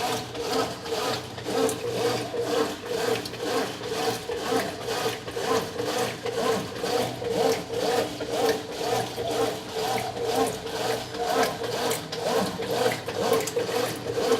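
Brastemp 9 kg washing machine agitating a load of clothes in water: a steady motor hum under a rhythmic swish-and-rub, about two strokes a second.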